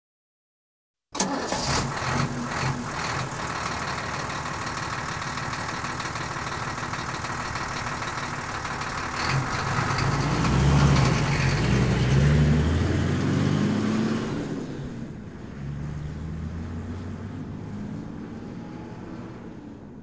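Diesel vehicle engine running; it cuts in abruptly about a second in. It grows louder with its low pitch rising and falling around the middle, then fades as the high end drops away.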